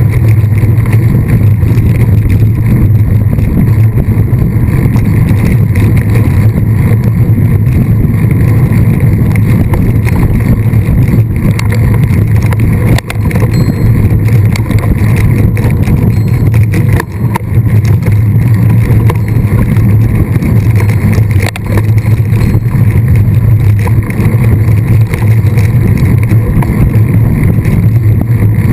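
Loud, steady wind noise and rumble on a rider-mounted camera microphone from a mountain bike being ridden at speed, with three brief dips in loudness.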